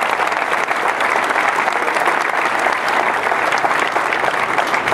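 A crowd applauding, steady dense clapping.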